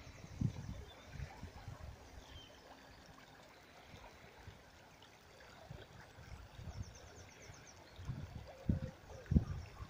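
Shallow river flowing as a faint, steady rush of water, overlaid by irregular low bumps on the microphone that grow stronger near the end.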